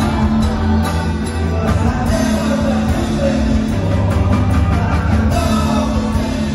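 Live band playing a song through PA speakers: electric guitars, bass and drums keeping a steady beat, with singing.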